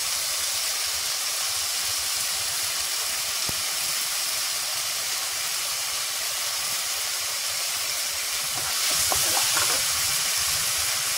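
Shallots, ginger-garlic paste and curry leaves sizzling in hot oil in a pan, a steady frying hiss that grows a little louder about nine seconds in.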